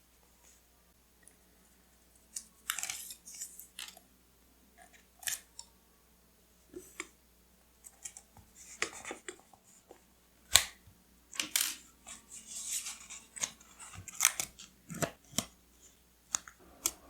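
Paper and stationery handled close to the microphone: irregular rustles, taps and sharp clicks. The first two seconds are quiet, and the loudest click comes a little past halfway.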